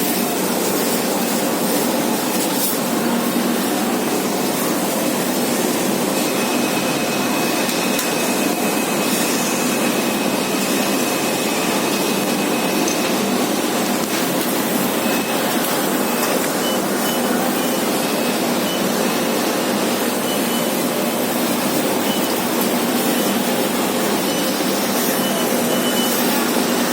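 Factory machinery running with a steady, loud, even noise. A faint thin high tone runs between about six and thirteen seconds in, and short high beeps come on and off through the second half.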